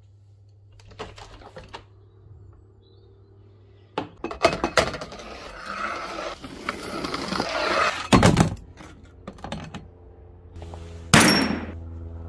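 Glass beer bottles and cans clinking as they are picked up, then rattling down a plastic guttering chute for a few seconds. Two loud clatters follow as they drop into a plastic recycling box, the second with a brief glassy ring.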